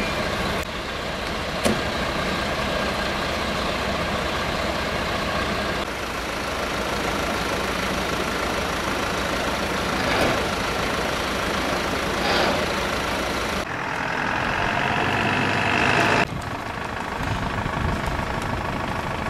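Fire trucks' diesel engines running steadily at idle. The sound shifts abruptly a few times, and there is one sharp knock about two seconds in.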